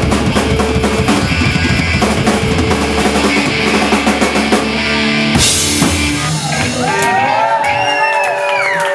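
Live rock band with drum kit and electric guitars playing the final bars of a song, ending on a loud crash about five seconds in. The audience then whoops and cheers.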